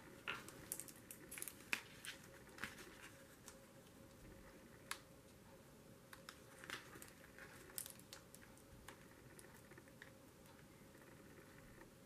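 Faint scattered taps and rustles of hands handling paper, a canvas sticker and a squeeze bottle of liquid glue, most of them in the first several seconds, over a faint steady hum of room tone.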